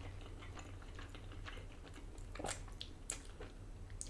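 Close-up chewing of a mouthful of spaghetti in meat sauce: soft wet mouth clicks and smacks, a couple of them louder, over a low steady hum.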